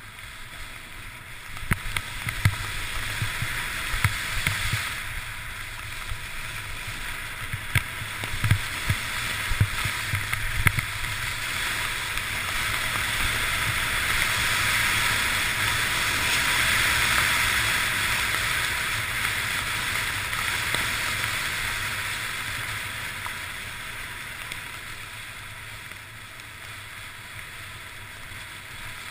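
Steady rushing hiss of a rider sliding fast down a groomed snow run, as picked up by a camera worn on the rider, with low wind rumble on the microphone. The hiss swells and is loudest past the middle. Scattered knocks and thumps in the first ten seconds or so come from the ride over uneven snow.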